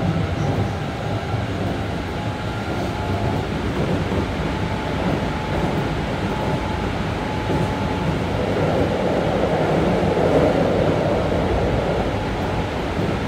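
Keikyu 1500 series electric train running, heard from inside the passenger car: steady rolling noise of wheels on rail, with faint steady whining tones from its Toyo GTO-VVVF traction inverter in the first few seconds. The rumble swells somewhat from about eight seconds in.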